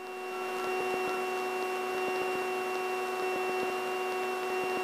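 Steady cabin drone of a Piper Aztec flying on its right engine alone, with the left engine shut down and its propeller feathered: an even hum carrying a few steady tones, which swells slightly over the first second and then holds.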